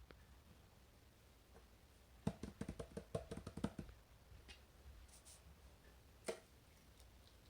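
Fidget toys being handled: a quick run of about a dozen light clicks lasting a second and a half, then a single click a few seconds later.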